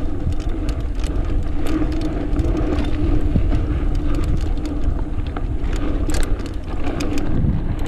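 Mountain bike riding downhill on a dirt trail: steady low wind rumble on the microphone and tyre noise, with many scattered clicks and rattles from the bike.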